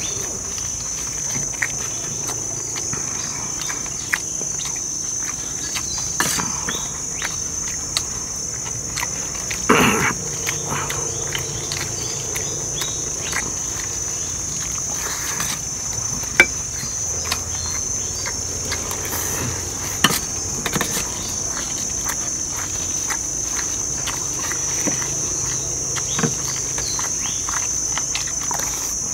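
Insects droning outdoors with a steady high-pitched buzz, over scattered sharp clicks and clinks of spoons and forks on plates.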